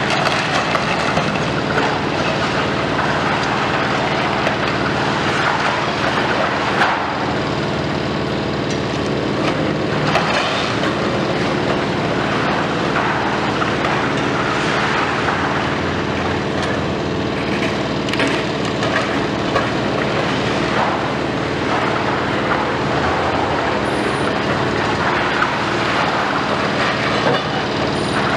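Diesel engines of a long-reach demolition excavator and a small loader running steadily under load, with repeated crunching and clattering of masonry and rubble breaking and falling.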